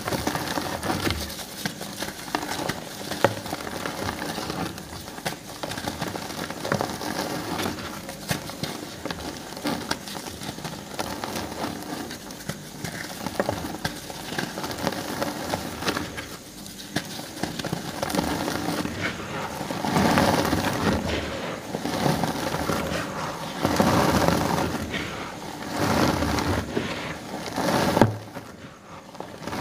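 Paint-coated reformed gym chalk crushed and crumbled between bare hands over loose chalk powder: a steady dense crunching and crackling of many small breaks. In the last third the squeezes come in louder surges about every two seconds, the loudest near the end.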